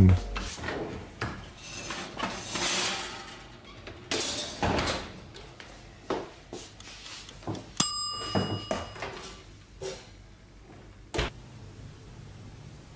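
Kitchen range oven door opened and worked, with clunks, knocks and rustling handling noises. A brief ringing tone sounds about eight seconds in, and a single sharp knock comes just after eleven seconds.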